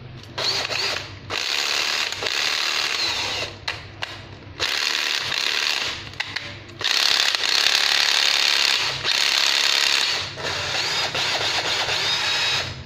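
Makita 9.6 V cordless drill-driver, fitted with a 12 V battery pack, running in about five bursts of one to three seconds with short stops between them. The longest and loudest burst comes in the middle. The clutch ratchets as it slips while the chuck is held.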